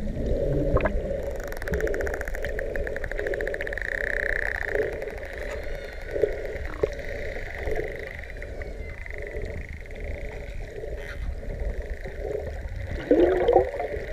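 Underwater sound among a pod of Hawaiian spinner dolphins: fast trains of echolocation clicks buzz for a few seconds, over steady water hum and rumble. A louder wavering burst comes near the end.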